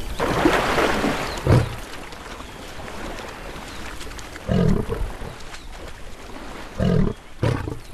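Lions growling in short rough bursts, about halfway through and twice near the end, after a hiss of noise at the start.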